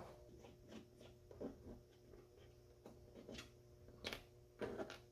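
Faint, scattered clicks and taps of plastic push-pin clips being worked out of a car's radiator-support cover, the sharpest click about four seconds in, over a low steady hum.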